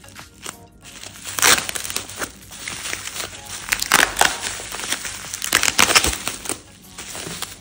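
Bubble wrap and plastic wrapping crinkling and crackling as they are handled and pulled off a plate, in several loud bursts starting about a second in and dying away near the end.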